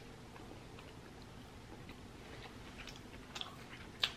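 Faint close-miked chewing of a mouthful of food, with small wet mouth clicks, and one sharper click near the end.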